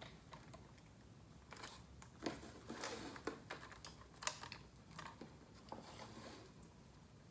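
Hands handling the wiring leads and connectors of an ECM blower motor: scattered small clicks and rustles, with two sharper clicks in the middle.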